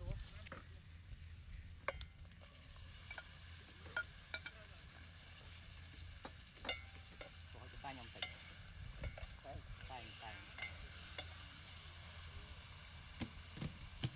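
Food sizzling and frying in a pan while it is stirred, with scattered clicks and knocks of the utensil against the pan. The sizzling hiss grows a little louder about three seconds in.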